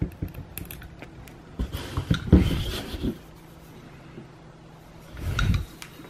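Handling noise from the opened housing of a pedestrian call button being picked up and turned over: scattered clicks and rubbing, with a cluster of knocks about two seconds in and a low rumbling shuffle near the end.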